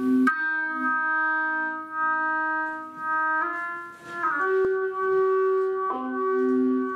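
Sustained electronic keyboard chords holding steady, organ-like tones, the chord shifting a few times, over a low note that swells and fades about once a second.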